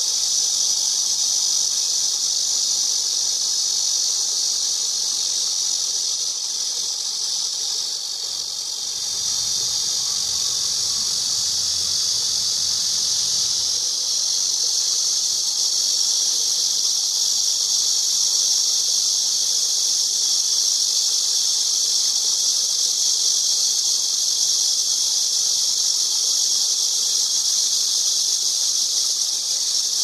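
Cicadas buzzing in one continuous, steady, high-pitched drone that dips slightly in level about eight seconds in.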